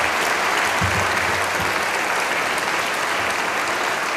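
Steady applause from a large audience, many people clapping together.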